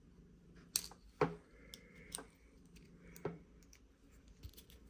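A few sharp clicks and lighter ticks, spaced irregularly, from the small metal and magnetic parts of a slider fidget being handled and taken apart.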